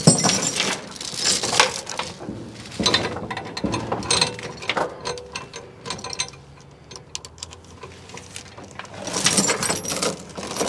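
Steel tie-down chain being pulled through a clevis shackle, its links clinking and rattling in irregular bursts that thin out mid-way and pick up again near the end.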